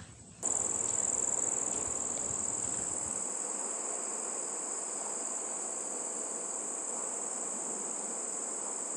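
Steady, high-pitched trill of crickets over a background hiss, starting abruptly about half a second in.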